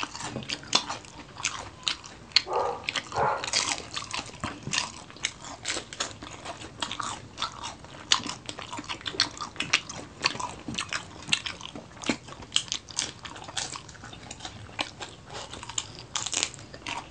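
Close-up chewing and crunching of crispy fried chicken feet and fried cheese-filled chili rolls, a dense run of sharp, irregular crackles and mouth clicks.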